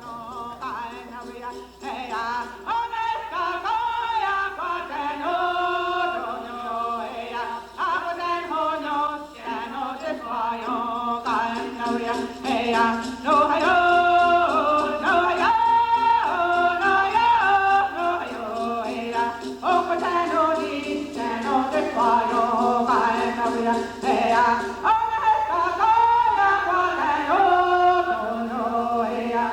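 Women's voices singing a cappella with several voices together, held notes shifting in pitch without recognizable words; the singing grows louder about eleven seconds in.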